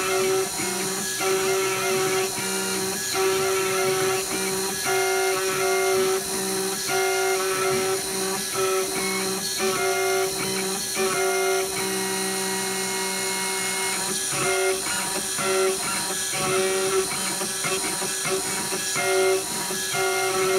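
Gravograph IS400 engraver with cylindrical attachment cutting an aluminium cylinder with a single-flute conical end mill. A steady high spindle whine runs under a string of short, steady-pitched machine tones that start and stop every second or so as the machine steps through the lettering.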